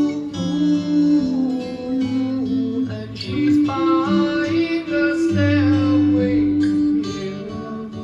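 Recorded music played back over a hi-fi system through Coherent Audio Model Twelve Neo Signature loudspeakers: guitar with a voice singing over held notes. It gets quieter near the end.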